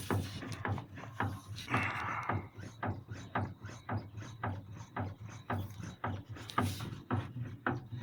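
Geely Atlas steering rack knocking: a quick, uneven series of dull knocks, several a second, over a steady low hum, the sign of a worn steering rack.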